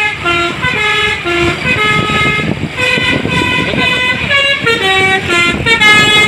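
Tour bus 'telolet basuri' melody horn playing a quick tune, its notes changing pitch several times a second, over a low rumble of engine and road noise.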